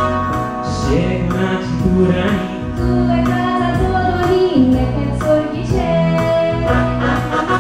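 A woman singing into a microphone over amplified backing music with a steady beat.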